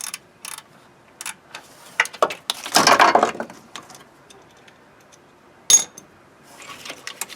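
Metal hand tools clinking and rattling as a socket wrench works a starter mounting bolt loose: scattered sharp clicks, with a dense burst of rapid clicking about three seconds in and a short rattle near the end.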